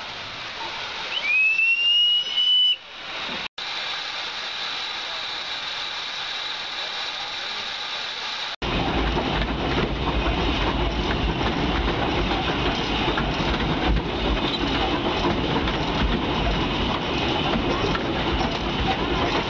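Narrow-gauge steam tank locomotive whistle sounding once, a single note sliding up and then held for about a second and a half, followed by a steady hiss. From about nine seconds in, the train running along the track, a loud steady rumble.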